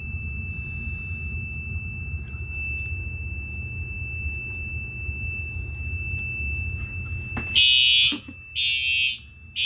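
Fire alarm system in alarm after a smoke detector trips. A steady high-pitched alarm tone sounds at first; about seven and a half seconds in, louder alarm pulses begin, three on-off blasts about a second apart, the temporal-3 evacuation pattern.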